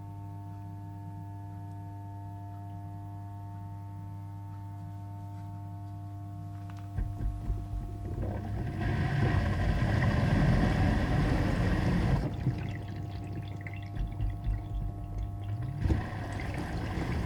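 A household appliance hums steadily for about seven seconds. Then a loud rushing, water-like churning starts, eases off partway, and picks up again after a click near the end.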